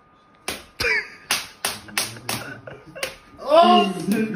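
Rhythmic hand claps and slaps, about three a second, from two people playing a hand-clapping game. About three and a half seconds in, a loud vocal cry cuts in and is the loudest sound.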